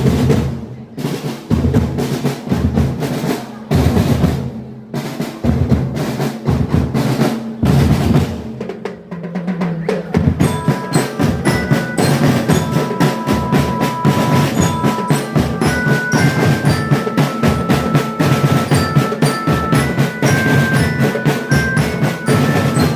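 Marching drum band playing live: snare and bass drums beat a cadence with snare rolls, and about ten seconds in a melody joins over the steady drumming.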